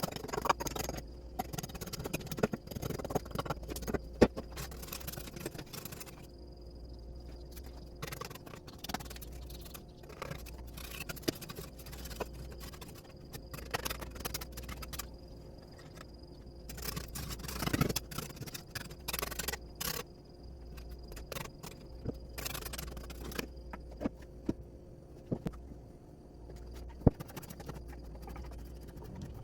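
Hand tools working wood: irregular scrapes and sharp knocks over a low steady hum.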